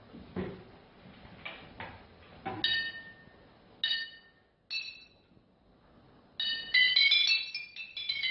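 Glass bottles filled with different levels of water struck with a spoon as a water xylophone, each ringing with a bright, clear tone at its own pitch. Three single strikes come first, then a quick run of several notes near the end.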